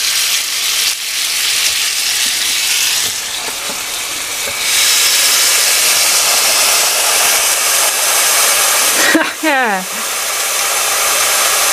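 Ribeye steak sizzling in a George Foreman contact grill, a steady hiss that gets louder about five seconds in, after the lid is pressed down on it.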